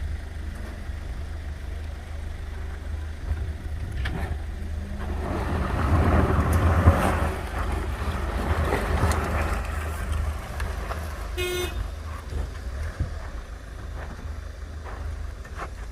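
Vehicle engine running under load, rising to a louder rush of engine and spinning-tyre noise for several seconds in the middle as an SUV tows a truck stuck in sand. One short horn toot near the end.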